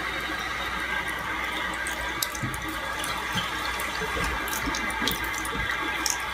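Water running from a bathroom faucet into a sink, a steady hiss with a few small knocks as a cat moves about in the basin.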